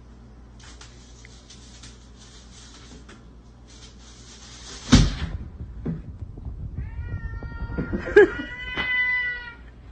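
A domestic cat meowing, one long drawn-out call near the end. A sharp knock comes about halfway through, and patchy scratchy noise comes before it.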